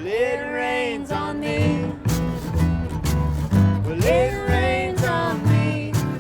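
Acoustic country-bluegrass band music: plucked guitar and a walking bass line under regular sharp percussion hits, with a long gliding lead melody swelling in twice, near the start and about four seconds in.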